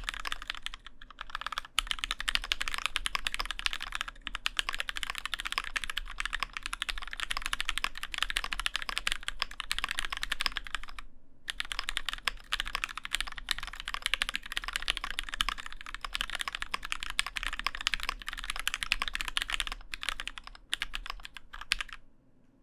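Fast, continuous typing on an Alice-layout mechanical keyboard with Gateron N1 linear switches (recoloured Gateron Yellows) on a thick 5 mm acrylic plate in a bonded acrylic case: a dense patter of keystrokes. It breaks off briefly about halfway, then stops just before the end.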